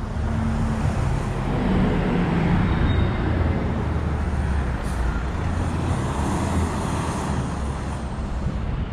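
Road traffic going by, a low engine rumble under broad tyre and road noise that swells over the first couple of seconds and then slowly fades.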